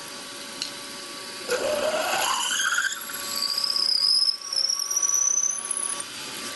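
A milling machine's spindle runs a 7.7 mm drill bit into a metal block, cutting the undersize hole for a 5/16 in reamer. About a second and a half in, the bit squeals as it cuts, rising in pitch for several seconds before easing off near the end, over the steady hum of the machine.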